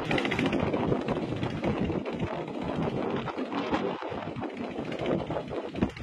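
Wind rushing over the microphone on open, choppy river water, a steady, irregular noise with no clear engine tone.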